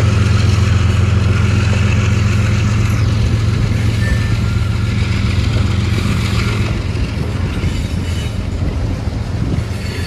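Freight train passing a grade crossing: a steady, deep diesel locomotive drone that slowly fades as the locomotives pull away, with the rumble of boxcars rolling by.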